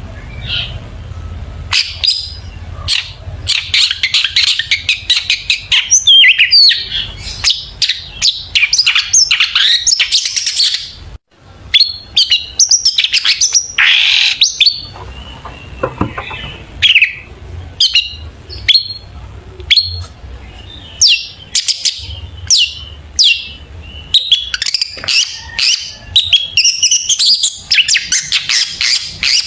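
Long-tailed shrike (cendet) singing a fast, varied song of short chirps, trills and whistled glides, with a brief break about eleven seconds in.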